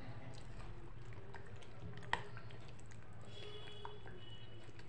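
Thin batter being stirred with a spoon in a glass bowl: faint wet squishing, with one light click of the spoon against the glass about two seconds in.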